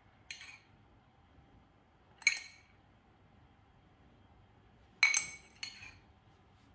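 Metal teaspoon clinking against glass bowls as grated Parmesan is spooned out: four short ringing taps, the first faint and the loudest about five seconds in.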